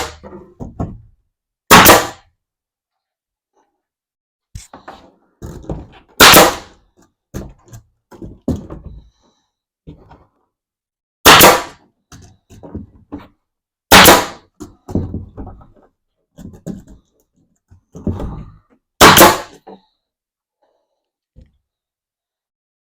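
Nail gun firing six times, a few seconds apart, tacking plywood down, with lighter knocks and handling clatter between shots.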